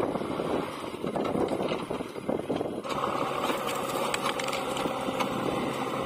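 JCB 3DX backhoe loader's diesel engine running under load as the front bucket pushes cut brush. About halfway through, the engine note turns clearer and more pitched, with short cracks over it.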